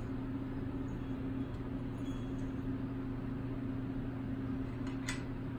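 Steady low room hum, with one light clink of porcelain teaware near the end.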